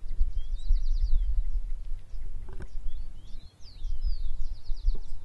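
Birds singing, with rapid trills and swooping chirps, over a loud low rumble.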